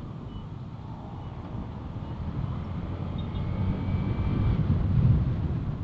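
Wind rushing over the rider's microphone with the Honda ADV150 scooter's single-cylinder engine and road noise while riding, a low rumble that grows steadily louder over the few seconds.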